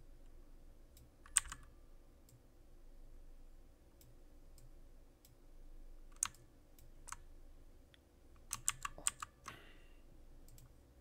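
Computer mouse and keyboard clicks: a single click about a second in, two more around six and seven seconds, and a quick run of four or five clicks near nine seconds, over a faint steady room hum.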